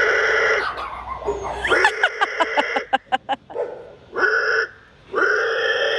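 Pig squeals: long, high squeals of about a second each, with a fast run of short squealing cries a couple of seconds in.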